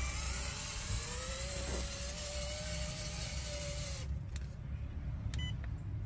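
RC crawler's electric motor whining, its pitch rising and then holding steady, over a steady hiss and low rumble. About four seconds in the hiss drops away, leaving a few faint clicks.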